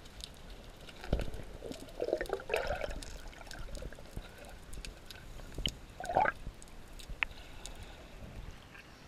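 Water sloshing and bubbling as picked up by a camera held just under the surface, with scattered small clicks and two louder gurgles, one about two seconds in and one about six seconds in.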